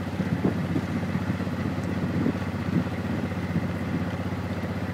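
A vehicle engine idling steadily, with a fast, even low pulsing.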